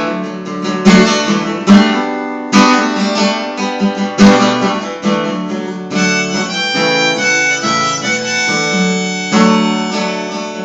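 Instrumental break: strummed acoustic guitar with a harmonica playing the melody. The guitar strums stand out for the first half, and the harmonica's held notes come to the fore from about six seconds in.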